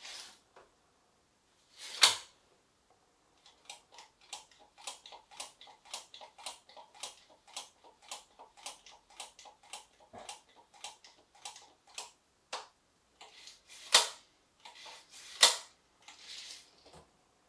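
A small hand tool clicking in the hands: a long run of light ratchet-like clicks, about three a second, with sharp snaps about two seconds in and twice near the end.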